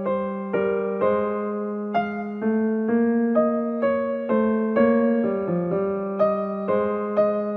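Background music: a gentle electric piano melody, notes struck about twice a second over a held bass note.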